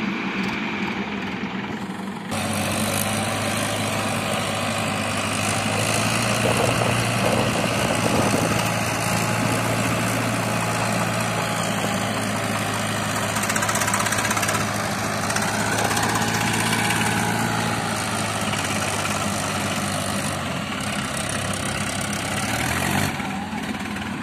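Sonalika tractors' diesel engines running hard under load as they try to pull a loaded trolley out of deep mud. The engine sound gets louder about two seconds in, rises and falls in pitch around two-thirds of the way through, and eases off near the end.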